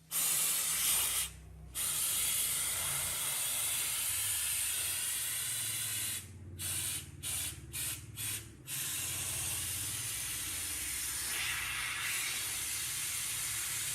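Compressed air hissing out of the restored air compressor in a steady stream over a low hum. It stops briefly about a second in, then stops and restarts in five quick bursts around the middle, as if an air gun trigger were released and squeezed.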